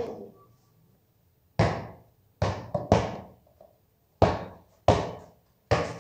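Rubber basketball bouncing hard on a concrete floor and striking the walls of a narrow alley: about seven irregular bangs, each with a short ringing tail.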